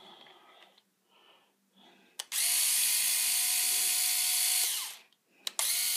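Skil 4-volt cordless electric screwdriver running in two bursts: it starts with a click about two seconds in, spins at a steady whine for about two and a half seconds, winds down, then clicks on again and keeps spinning to the end.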